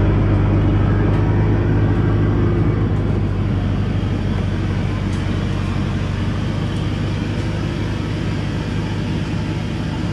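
Diesel engine of a truck loaded with acacia logs running steadily as it pulls along at low speed, a low drone that fades gradually as the truck moves away.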